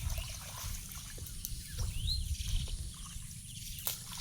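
Outdoor ambience: a steady low rumble with a short rising bird chirp about two seconds in and another near the end, and a single sharp click just before the end.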